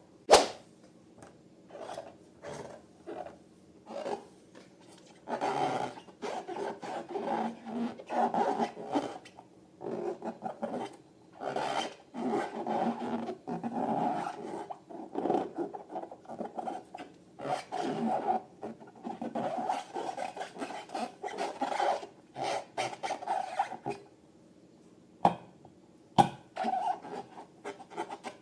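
Hands rubbing and squeezing rubber balloons filled with slime: irregular squeaking and rubbing of the balloon rubber, with a sharp snap just after the start and two more snaps near the end.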